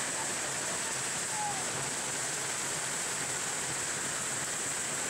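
Crowd of hockey spectators applauding, a dense, steady clapping.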